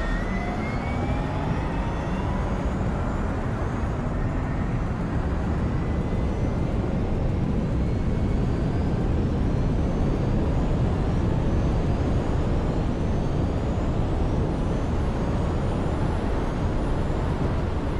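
Electric sports car accelerating hard towards top speed: a motor whine that climbs in pitch, over a steady, loud rush of wind and road noise.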